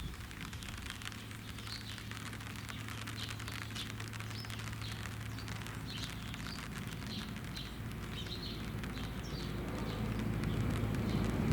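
Birds chirping in short repeated calls over a steady low hum and light crackling. An approaching train's rumble grows louder near the end.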